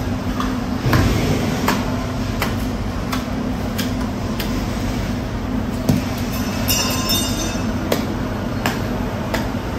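Sharp knocks, roughly one every three-quarters of a second, as a heavy knife is worked and chopped into a bluefin tuna's head, over a steady low machine hum. A brief high ringing tone sounds about seven seconds in.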